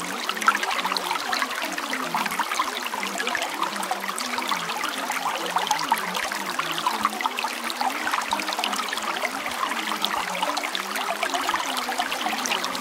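Steady trickling, babbling water like a small stream, dense with small splashes and unbroken, over a low wavering murmur.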